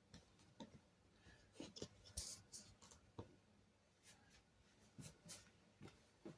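Faint, scattered rustles and small clicks of fabric and straight pins being handled while pinning.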